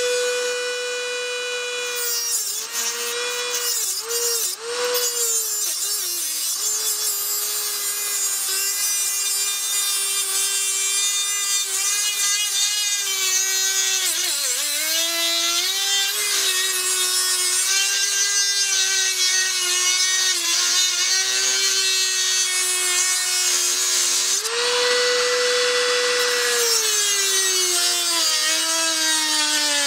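Dremel rotary tool with an abrasive cut-off wheel grinding through a rusted exhaust flange bolt. Its high, steady motor whine sags and wavers in pitch while the wheel bites into the metal. About 25 seconds in it rises briefly as the wheel comes off the bolt, then drops again as cutting resumes.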